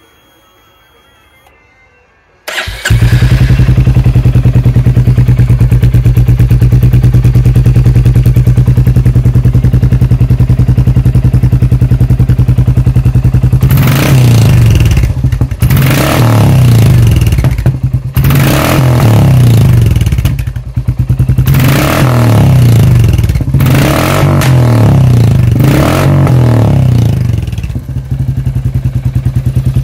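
Royal Enfield Classic 350's single-cylinder engine, breathing through a newly fitted Hitchcock's aftermarket exhaust, started for the first time since the fit. It catches about two and a half seconds in and settles into a steady idle. From about halfway it is revved in a series of throttle blips, then drops back to idle near the end.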